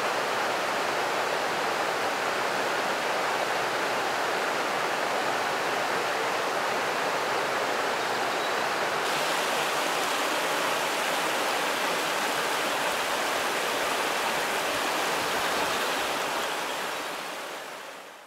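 A shallow, rocky stream with riffles, water rushing steadily over stones. The sound fades out near the end.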